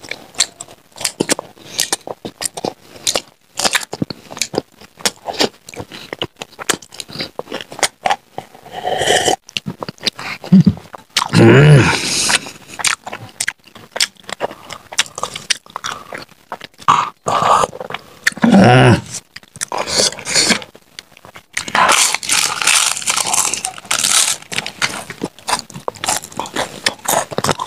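Close-miked crunching and chewing of crisp fried snacks, a dense run of sharp crackles, heaviest and most continuous near the end. Two brief vocal sounds come about 12 and 19 seconds in.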